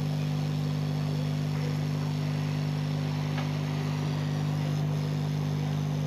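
Steady electric motor hum, even in pitch and level, with a faint tick about three and a half seconds in.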